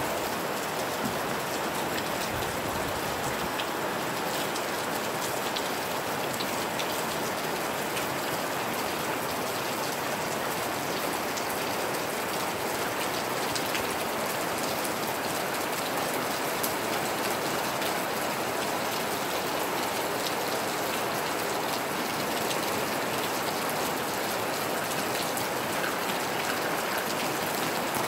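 Steady rain falling, an even hiss with scattered sharp ticks of single drops striking close by.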